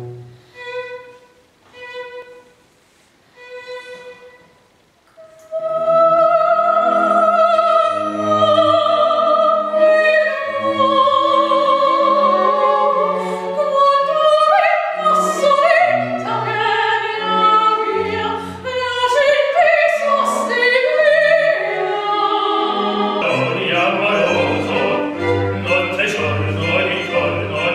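A string quartet plays three short repeated notes, then from about five seconds in an operatic soprano sings with vibrato over the quartet's bowed accompaniment. About 23 s in the music changes to a male operatic voice with the quartet.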